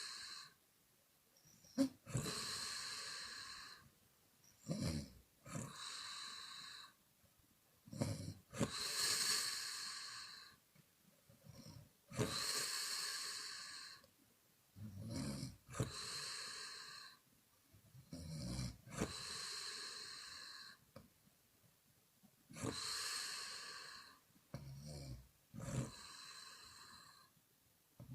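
A woman snoring in a steady cycle: a short low rumbling snore, then a long airy exhale blown out through the mouth, repeating about every three to four seconds.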